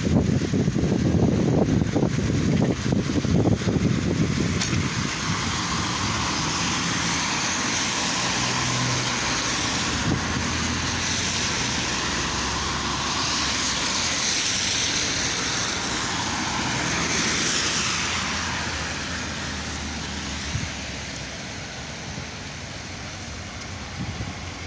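Wind buffeting the microphone for the first few seconds, then road traffic: a steady hiss of cars passing on a wet road, swelling in the middle and easing off near the end.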